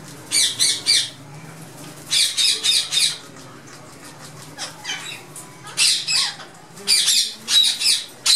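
Indian ringneck parakeets squawking in harsh, high-pitched calls, given in quick runs of two to four with short pauses between the runs.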